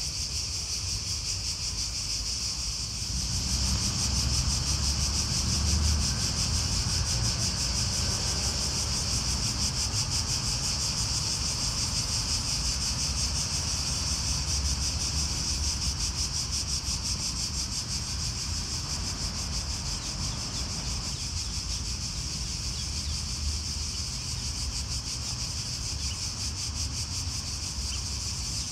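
Steady high-pitched chorus of insects with a fine pulsing texture, over a low rumble that swells from about three seconds in and eases off in the second half.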